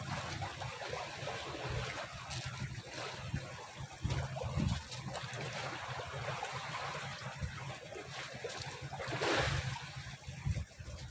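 Water trickling and lapping, with a steady low hum underneath and a few low thumps; one louder splash-like swell near the end.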